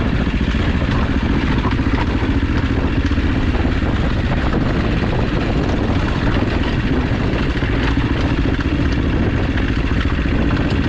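AJP PR7 motorcycle's single-cylinder engine running steadily as it is ridden off-road.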